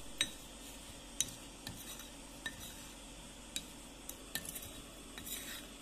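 A metal spoon stirring a dry flour-and-sugar mix in a fluted glass bowl: a soft scraping with light clinks of the spoon against the bowl, roughly one a second.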